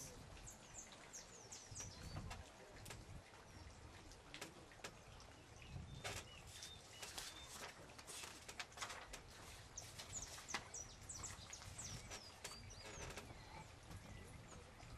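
Small birds chirping and twittering faintly in short, quick calls, in bursts a few seconds in and again past the middle, with scattered faint clicks.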